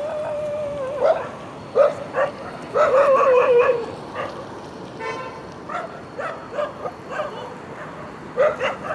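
Dog barking repeatedly, with long drawn-out calls at the start and about three seconds in, softer barks in the middle and louder barks again near the end.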